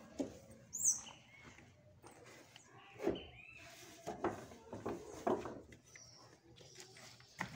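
Wooden planks knocking against one another as they are picked up and moved, a few separate knocks. A bird chirps briefly about a second in.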